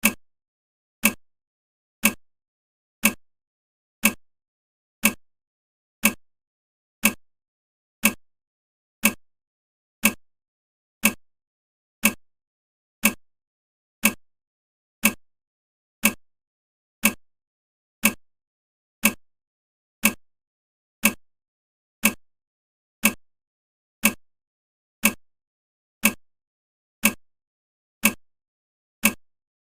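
Clock-tick sound effect of a countdown timer, one short tick each second, about thirty in a row.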